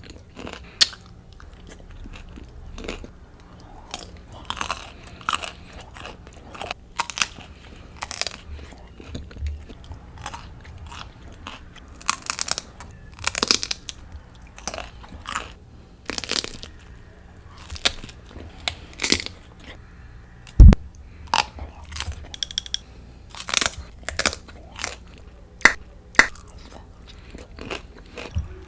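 Close-up bites and chewing of crunchy broccoli: many separate sharp crunches at an uneven pace, with one heavy thump about two-thirds of the way through.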